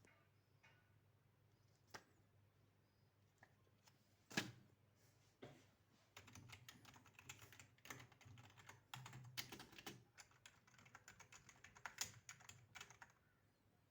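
Typing on a L33T semi-mechanical gaming keyboard: a few separate key presses, one sharper than the rest, then a run of rapid keystrokes from about six seconds in until near the end.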